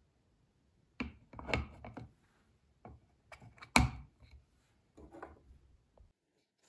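Clear plastic lid being fitted onto a red microwave egg poacher: plastic scraping and clattering in short bursts, with one sharp click near the middle as the lid goes on.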